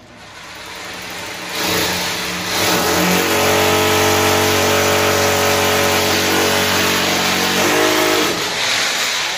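Corded electric drill boring into a plastered wall, the motor running at full speed with a loud grinding hiss. It builds up over the first second or two and dies away near the end.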